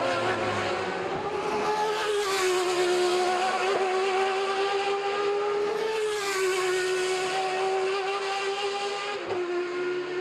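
1993 Le Mans sports-prototype race car engines running at high revs, a strong held engine note that rises and dips slightly, with swells of noise about two and six seconds in.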